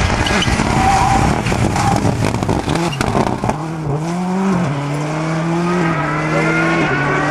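Rally car engine at high revs through a corner, with sharp cracks over it during the first few seconds. It then pulls away under full throttle, the engine note climbing and dropping back at each of several quick upshifts.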